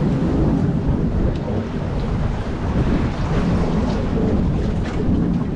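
Steady rumble of wind buffeting the microphone, with sea surf washing among the breakwater's concrete tetrapods underneath.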